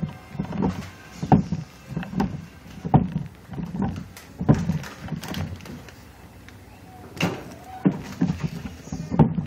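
A series of dull knocks at a steady pace, a little faster than one a second, with a brief pause a little past the middle.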